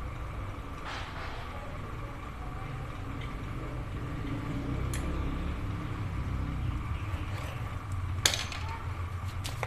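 Light metallic clicks and clinks of piston and connecting-rod parts being handled on a diesel engine block, with one sharp metal click about eight seconds in. A steady low engine-like rumble runs underneath.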